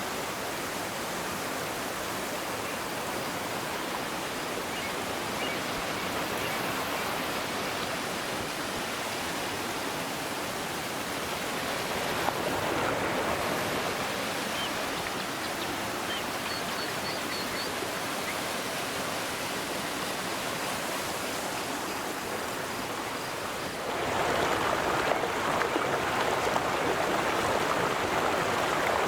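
River water flowing, a continuous steady rush that becomes louder about 24 seconds in.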